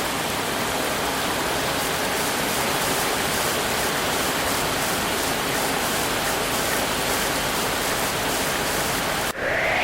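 Steady rushing of water, like heavy rain or a swollen river, unchanging and cutting off suddenly near the end.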